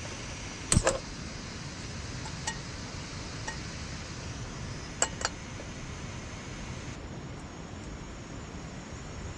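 Metal cookware and utensils clinking: a few sharp clinks that ring briefly, a loud pair about a second in, two faint ones, and another pair about five seconds in, over a steady background hiss.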